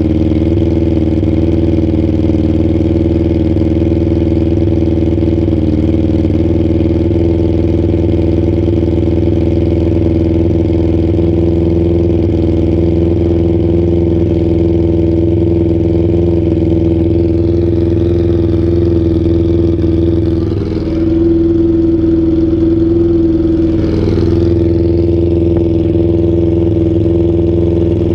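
Suzuki Bandit inline-four motorcycle engine running loud through a straight-pipe exhaust, idling with a steady note. Its note dips briefly and shifts slightly about two-thirds of the way through, then settles back.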